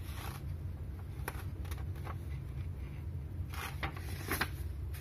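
Paper pages of a menu being handled and turned, giving several short rustles and crinkles over a steady low hum.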